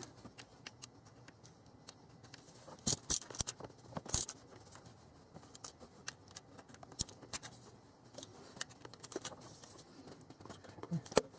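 Hand ratchet and socket clicking now and then as water pump bolts are snugged down to an even pre-torque, with a few louder metal clicks about three and four seconds in and again near the end.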